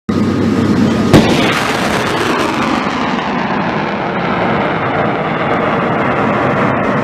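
A loud, steady rushing roar that starts abruptly, with a sharp bang about a second in.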